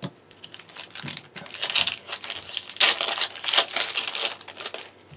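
Foil wrapper of a Yu-Gi-Oh! booster pack crinkling as it is handled and torn open. The crackling is irregular and grows louder in the middle.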